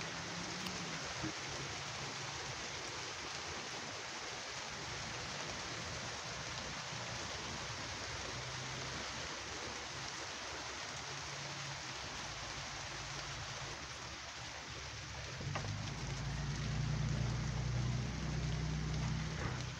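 Heavy rain pouring steadily, a constant even hiss. About three-quarters of the way through, a louder low rumble joins in.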